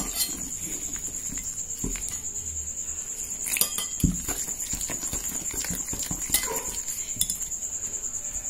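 Wire whisk beating thick gram-flour batter in a glass bowl, the wires clicking and tapping against the glass in a quick, steady rhythm, with a few louder knocks along the way.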